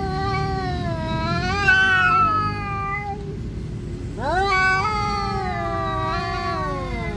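Cats in a territorial standoff, yowling: long, wavering caterwauls that slowly rise and fall in pitch. One fades out about three seconds in, and another starts about a second later and slides down in pitch near the end.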